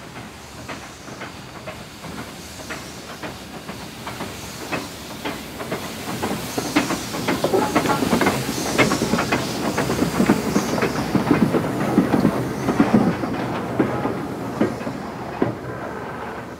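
Caledonian Railway 812 Class 0-6-0 steam locomotive No. 828 running past: a rhythmic clatter of wheels and motion over the rails with a hiss of steam. It grows louder, is loudest as it passes about halfway through, then fades away.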